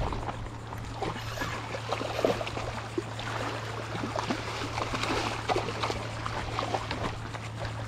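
Irregular splashing in shallow water as a hooked snook thrashes at the surface near the shore, over a steady low hum.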